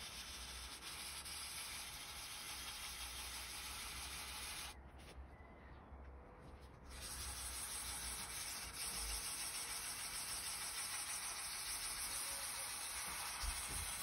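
500-grit wet-and-dry sandpaper on a wooden block, rubbed in small circles over fresh gelcoat on a fibreglass centreboard: a steady scratchy rasp. It breaks off for about two seconds about five seconds in, then resumes slightly louder. This is the sanding that brings the gelcoat patch down flush with the surrounding surface.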